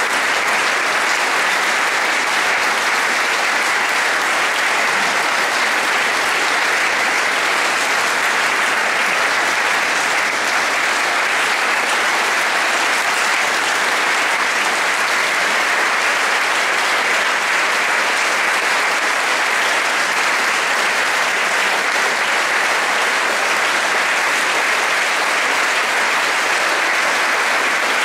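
Large audience clapping, a dense, steady applause that keeps up without a break.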